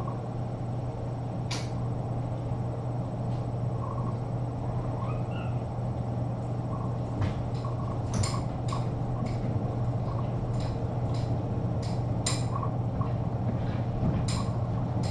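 Steady low hum of room tone, with scattered sharp clicks and taps that come more often in the second half, and a faint short rising squeak about five seconds in.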